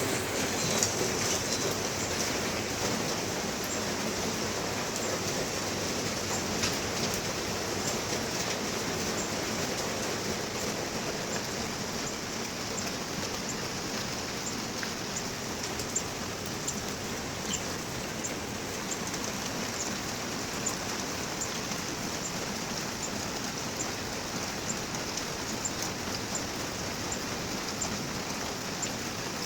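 Steady rain falling: an even hiss, with faint high ticks of drops that come more often in the second half.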